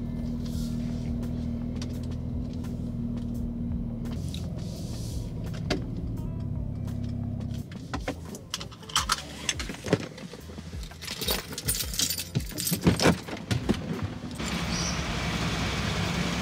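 Steady low hum of a car heard inside the cabin, cutting off after about seven and a half seconds. A run of scattered clicks, knocks and jangling keys follows. A steady hiss fills the last couple of seconds.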